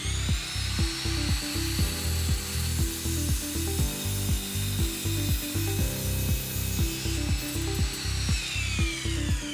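Electric mitre saw spinning up, its blade cutting through a softwood batten, then the motor whine falling away near the end as it winds down. Background music with a steady beat plays throughout.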